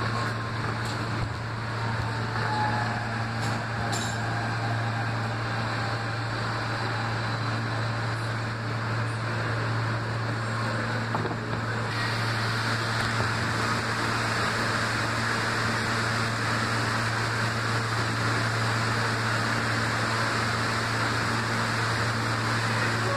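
R160B Siemens subway car running through the tunnel: a steady rumble of wheels on rail over a constant low hum. The rushing noise grows louder about twelve seconds in.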